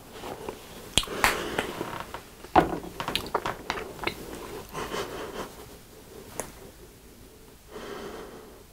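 Plastic ketchup and mustard squeeze bottles being handled: a string of clicks and knocks of caps and bottles, the loudest a single knock as a bottle is set down, then a short hiss as the mustard bottle is squeezed near the end.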